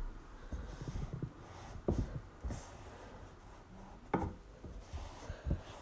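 Packing paper and a cardboard box being rustled and scratched, with scattered light clicks and a few sharper knocks about two and four seconds in.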